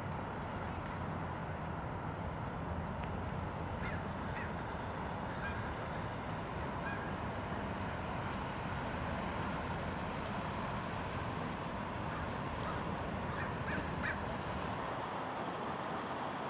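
Steady low rumble of a Toyota Tundra pickup's engine as it pulls up towing a boat trailer, thinning out about fifteen seconds in, with scattered short crow caws.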